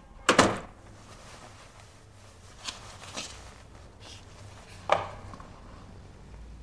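A sharp knock just after the start, then a few faint handling noises and a second sharp knock about five seconds in.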